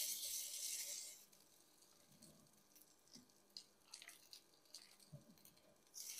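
Strips of raw beef sizzling as they are laid into hot oil in a nonstick frying pan. A burst of sizzle at the start fades after about a second to faint crackling with a few soft knocks, then flares up again near the end as more beef goes in.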